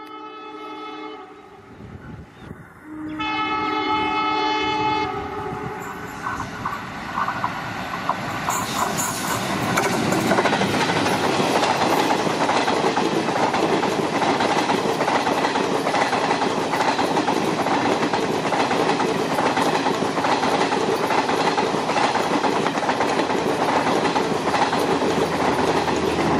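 WDM3A ALCo diesel locomotive sounding its multi-tone horn in two blasts, the second from about 3 to 5 seconds in. Then the express rushes past, loud and steady, its engine chugging and its wheels clattering over the rail joints.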